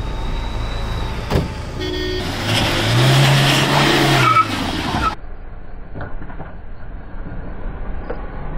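A vehicle engine revs up and falls back again, with a brief horn-like toot just before. About five seconds in the sound changes abruptly to a quieter, duller low rumble.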